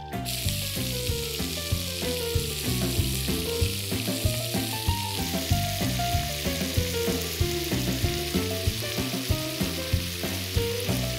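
Pieces of monkfish sizzling as they brown in hot oil in a frying pan. The sizzle starts suddenly as they go into the oil and holds steady, with light taps of a fork against the pan as the pieces are placed and turned.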